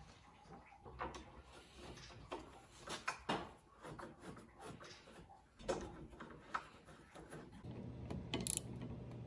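Clicks and knocks of the Shapeoko XXL CNC router's aluminium frame rails and hardware being handled and fastened during assembly. Near the end there is a steadier low rumble as the gantry's V-wheels roll along the rail.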